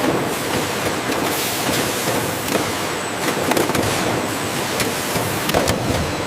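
Industrial processing machinery running steadily: a constant mechanical noise with scattered light clicks and rattles.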